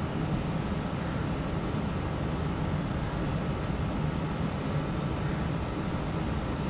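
Steady background noise: an even, continuous rush with a low hum underneath and no distinct events.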